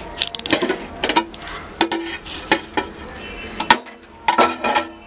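Stainless-steel pots and utensils clinking and knocking on a gas stovetop: a string of irregular sharp metallic clanks, several with a short ring.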